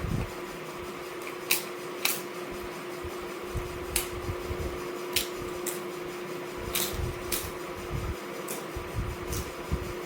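Close-miked eating sounds: chewing with a series of sharp, irregular mouth clicks and smacks and soft low thumps, over a steady fan hum.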